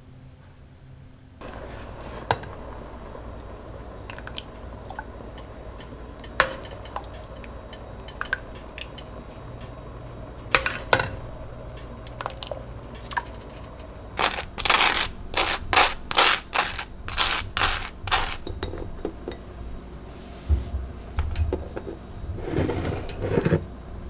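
Kitchen handling sounds over a steady low hum that starts about a second and a half in: scattered clinks and knocks of utensils and dishes, then a quick run of about ten louder scraping strokes in the last third.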